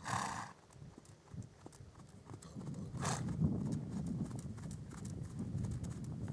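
A New Forest pony's hooves beating at the trot on soft sand footing, a steady run of dull thuds that grows louder about two and a half seconds in as the pony comes close. Two short breathy bursts cut in, one at the start and one about three seconds in.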